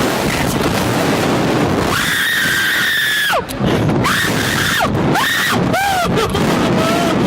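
Riders screaming on a slingshot catapult ride, over a loud rush of wind. About two seconds in comes one long high scream that drops in pitch as it ends, followed by several shorter screams.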